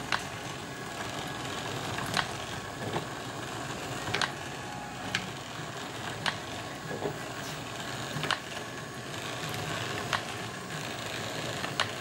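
Golf range ball striper running, its roller chains and belt driven by a variable-speed DC motor, giving a steady mechanical whir with a sharp click every one to two seconds.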